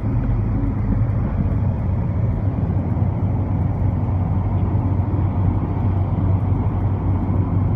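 Steady road noise inside a car cabin at highway speed: a low, even drone of tyres and engine.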